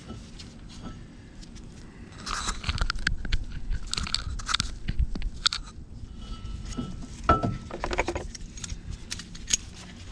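Loose metal tool pieces clinking, clattering and scraping as they are handled and sorted, irregular and starting about two seconds in.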